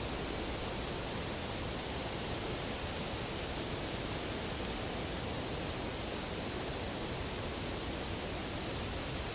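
Steady, even hiss with no knocks, calls or other distinct sounds standing out.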